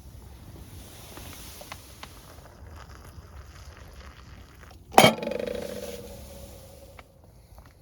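Metal camp cookware clanking: a few light clinks and taps, then one sharp clank about five seconds in that rings on and fades over a second or so.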